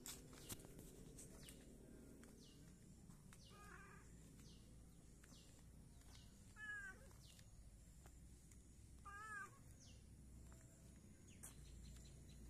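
Domestic cat meowing three times as it walks: a faint short meow about three and a half seconds in, then two clearer meows near seven and nine seconds, each wavering in pitch.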